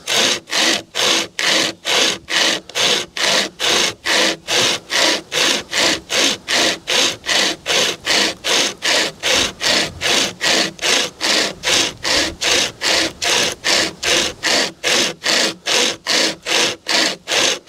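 Drifta Stockton pocket chainsaw, a length of chainsaw chain with cord grab handles, pulled back and forth through a dead branch about two inches thick. Steady rasping strokes, about two to three a second, cutting through quite easily.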